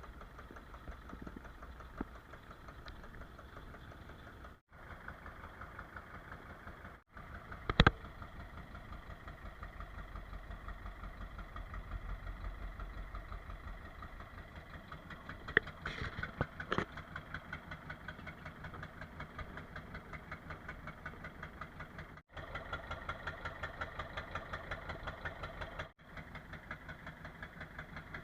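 Fishing boat's engine running with a steady, even chugging. A few sharp knocks stand out over it, the loudest about eight seconds in and a short cluster around sixteen seconds.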